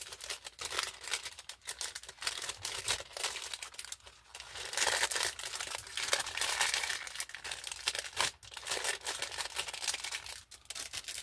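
Thin plastic packaging crinkling in quick irregular crackles as a small clear bag holding a silicone mold is handled, loudest around the middle.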